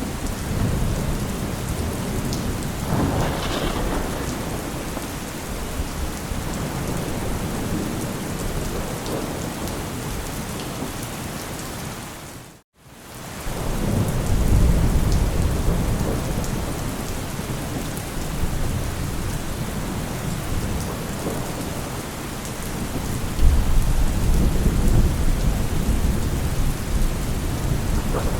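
Heavy steady rain with thunder rumbling in low, rolling swells, loudest in the second half and near the end. The sound drops out to silence for an instant about halfway through.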